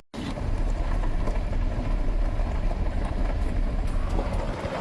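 Steady road and engine noise heard from inside a moving vehicle, a dense rushing sound heaviest in the low end, with a brief dropout at the very start.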